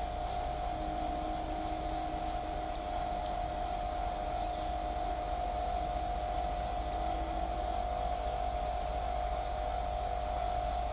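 A steady mechanical hum holding one constant tone, with a low rumble underneath and a few faint clicks.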